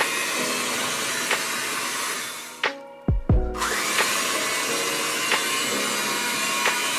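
Electric hand mixer running steadily as its beaters whip sponge-cake batter in a glass bowl, in the final beating. It cuts out briefly a little under three seconds in, with a couple of knocks, then runs again.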